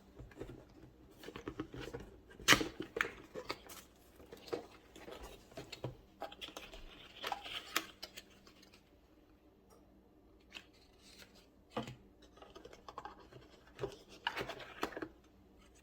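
Packaging being handled during an unboxing: irregular scraping, rustling and clicking, with a sharp click about two and a half seconds in and bursts of rustling near the middle and near the end.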